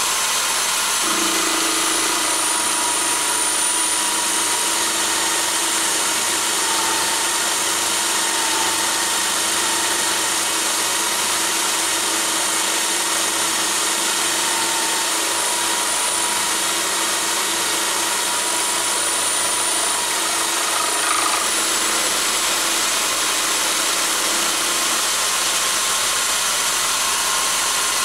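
Electric power drill running steadily, driving a carbide end mill through a toolpost drill spindle as it mills a slot in 316 stainless steel bar. A steady motor whine with a high tone; a lower hum joins about a second in and drops out near the end.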